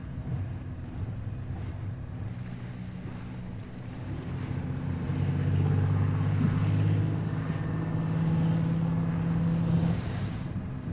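Film soundtrack played over home-theater speakers: landing-craft engines droning low and steady over choppy sea and wind, swelling louder about four seconds in, with a short hiss of spray near the end.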